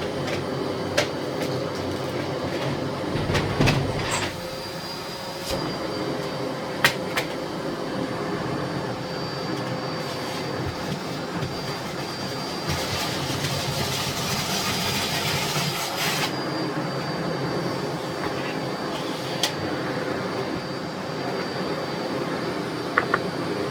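Miele Blizzard CX1 bagless vacuum cleaner running steadily with a high motor whine, with scattered clicks and knocks of debris and the nozzle. Halfway through, a louder rush of air lasts about three seconds.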